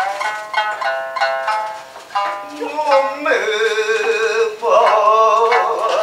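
Shamisen plucked in a kouta accompaniment, note after note. About three seconds in, a singing voice joins with long, wavering held notes over the shamisen.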